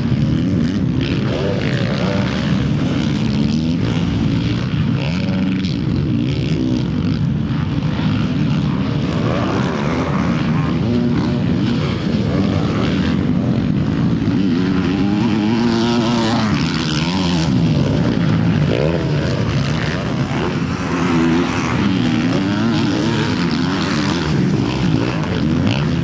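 Motocross bike engines racing, revving up and backing off again and again so the pitch keeps rising and falling, with more than one bike heard at once.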